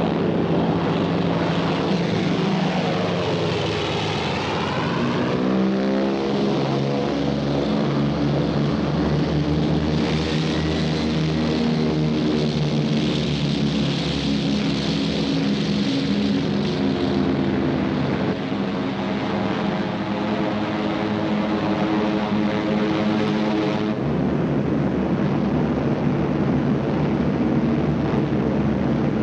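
Propeller-driven bombers' piston engines droning, the pitch sweeping down and up as aircraft pass. The engine sound changes abruptly a few times.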